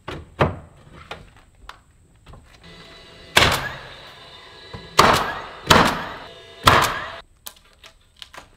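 A DeWalt cordless roofing coil nailer fires four sharp shots over about three seconds, driving nails through stone veneer siding panels, after a few lighter knocks in the first two seconds.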